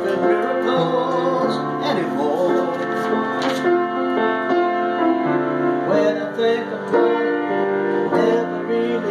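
Piano playing a slow ballad in sustained chords, with a man's singing voice coming in at times.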